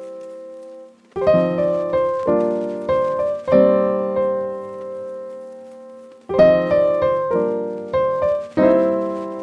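Background music: solo piano playing slow chords, each struck and left to ring out, with a short pause after about a second and another before the sixth second.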